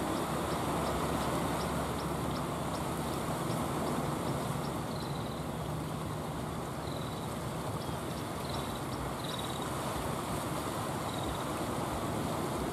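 Steady wash of sea surf under the low drone of a motorised outrigger boat's engine. Short high chirps come every second or two from about five seconds in.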